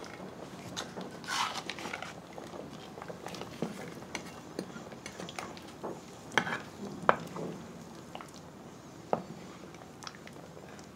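Metal ladle clinking and scraping against a stainless steel stockpot while stirring and scooping pot-au-feu broth, in irregular light clinks with the sharpest few a little past the middle.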